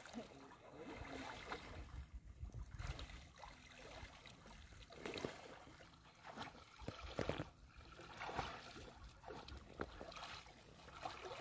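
Water sloshing and splashing irregularly around legs wading through a shallow pond.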